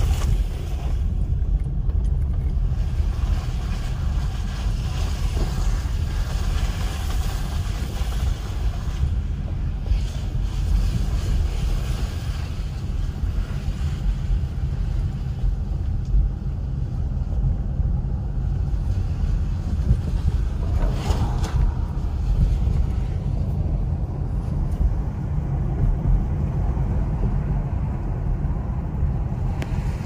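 Steady low rumble of a car's tyres and engine heard from inside the cabin while driving slowly.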